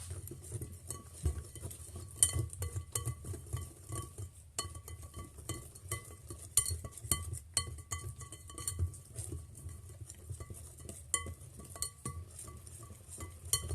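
A spoon clinking against a mixing bowl as pie crust mixture is stirred: rapid, uneven strikes, each with a short ringing tone from the bowl. There is a brief pause about four and a half seconds in.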